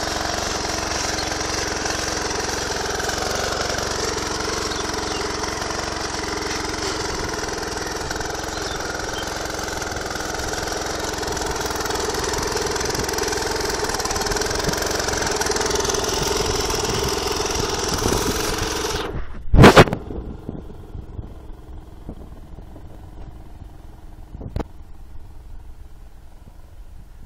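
A scooter engine on a homemade tractor cultivator running steadily as it tills soil. About twenty seconds in there is a loud thump, after which the engine is heard only faintly.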